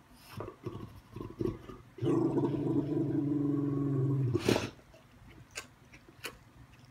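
A Dogue de Bordeaux grumbling while a hand strokes his hindquarters: a few short low grunts, then one long, steady, low growl of about two seconds, cut off by a brief sharp noise.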